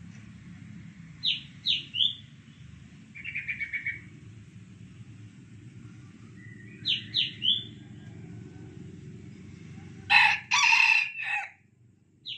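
A red junglefowl rooster crows once near the end, a short clipped crow of about a second and a half with a break in it, the loudest sound. Before it, a small bird calls twice with a quick run of three falling chirps, and a brief fast trill sounds once.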